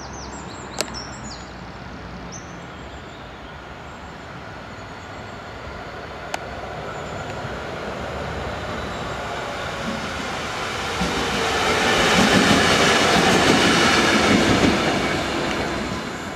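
Class 66 diesel-electric locomotive running light with no train, its two-stroke V12 engine running as it approaches and passes close by. The sound builds from about eight seconds in and is loudest between about twelve and fifteen seconds, with wheel noise on the rails, then starts to fade. There is a sharp click about a second in and another around six seconds, with a few short high squeaks near the start.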